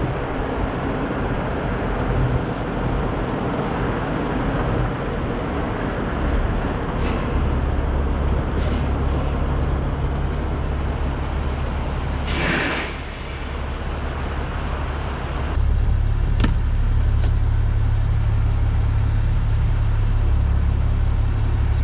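Heavy truck's diesel engine running steadily, with a sharp hiss of released air lasting about a second a little past halfway. From about two-thirds of the way in, the engine runs louder and deeper.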